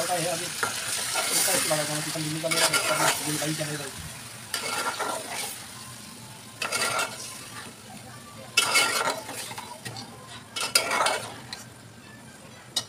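A steel spatula scrapes and stirs chicken and potatoes frying in masala in an aluminium pot, over a steady sizzle, with scraping strokes every second or two. A voice is heard in the background over the first few seconds.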